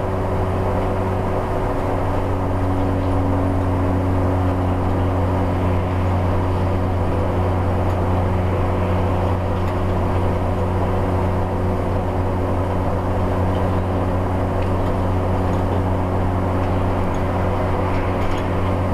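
Cummins ISL 8.9-litre diesel engine of a motor home pulling hard up a long, steep grade at about 1,800 rpm in fourth gear, a steady low drone with road noise, heard from inside the coach.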